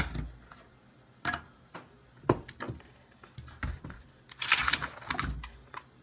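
Small parts of a truck's center console latch being handled: a few separate clicks and taps, then a longer rustling scrape about four and a half seconds in.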